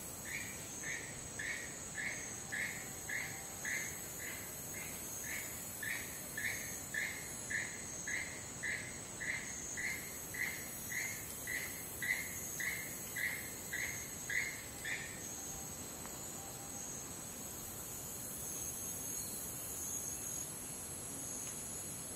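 Rainforest ambience: a steady high-pitched insect chorus, with a repeated call about twice a second that runs for roughly the first fifteen seconds and then stops.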